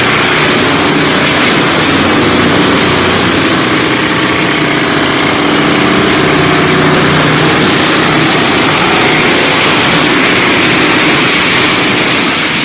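FD1400-700 wood chipper running loudly and steadily: a machine hum under a dense rushing noise, with no pauses or changes.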